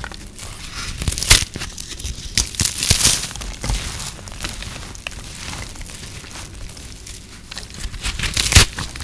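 Hands crushing and breaking brittle microwave-puffed soap: a gentle, irregular crunching and crinkling, with sharper cracks about a second in and again near the end.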